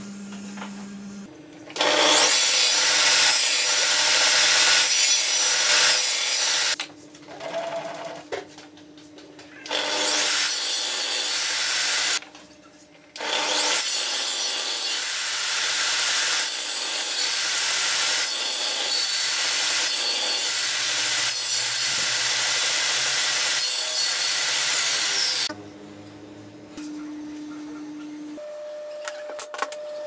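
Table saw cutting small wooden pieces: three loud cutting passes, a short one about two seconds in, a brief one around ten seconds, and a long one from about thirteen seconds to twenty-five, with the saw quieter between them.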